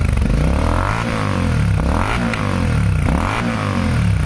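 Royal Enfield Continental GT 650's parallel-twin engine revved through an aftermarket AEW 103 exhaust with its dB killer fitted: three throttle blips, each rising and falling back, with a sharp crack as the revs drop about two seconds in. With the dB killer in, it pops mainly above about 4000 rpm.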